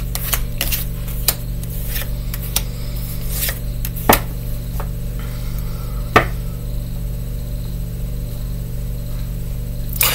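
Tarot cards being handled and set down on a table: a scatter of light clicks and taps, with two louder knocks about four and six seconds in, over a steady low hum.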